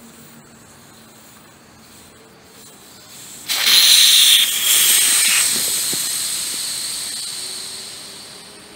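Air rushing out of a Lectric XP electric bike's inner tube through the valve stem with its core removed. The hiss starts suddenly about three and a half seconds in, then fades away steadily as the tire goes flat.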